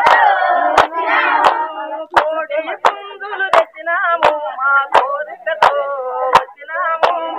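A group of women singing a folk song together while clapping their hands in time, one sharp clap about every 0.7 seconds.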